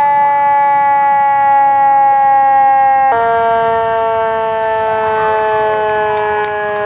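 Siren on a Chicago Fire Department ladder truck going by. It sounds as a loud, steady wail that drifts slowly lower in pitch, with a sudden step down about three seconds in.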